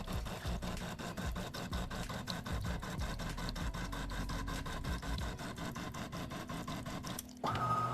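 De'Longhi Dinamica Plus automatic espresso machine starting up. Its pump and internals run with a steady hum and rapid even clicking, about six clicks a second, then stop abruptly near the end.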